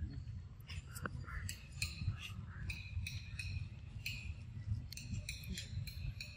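Forest ambience: many short, high chirps and clicks at irregular intervals over a steady low rumble.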